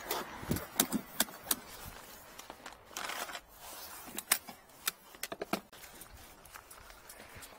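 Scattered sharp clicks and light metallic knocks of aluminium tool cases and a drain-cleaning cable reel being handled and packed away, the clicks clustered in the first second and a half and again around four to five and a half seconds in.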